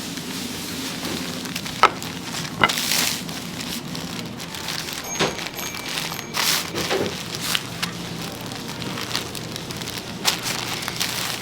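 Steady crackly hiss with scattered sharp clicks and knocks, two louder ones close together about two seconds in.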